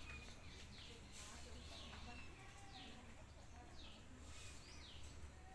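Faint bird calls: short chirps sweeping downward in pitch, repeated about once a second, over a low steady hum.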